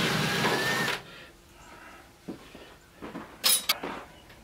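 Cordless drill-driver runs for about a second, backing a screw out of a microwave's sheet-metal case. A knock and a few sharp clicks follow about two and three seconds later.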